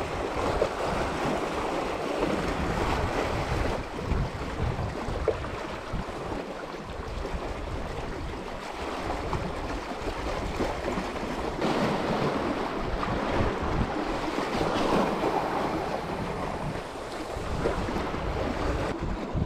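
Wind buffeting the microphone over sea waves washing against rocks, a steady rushing noise with a gusty low rumble.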